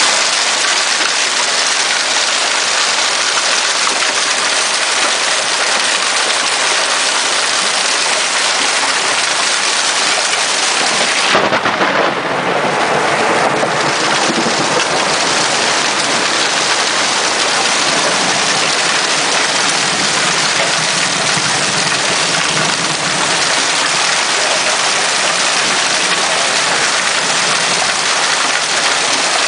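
Hailstorm: hail and rain pelting down in a dense, steady hiss. About eleven seconds in the sound grows fuller and lower, and it stays that way.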